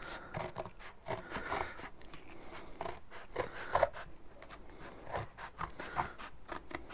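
Scissors cutting through cardboard: a run of irregular crunchy snips and scrapes, with the cardboard rustling as it is handled.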